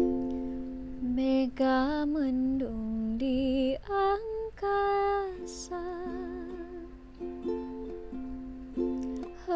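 Slow keroncong-style song intro: ukulele plucking chords, with a melody line with vibrato above it.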